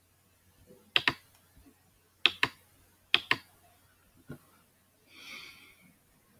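Computer mouse clicking: three quick double clicks about a second apart, then a fainter single click, and a short soft hiss near the end.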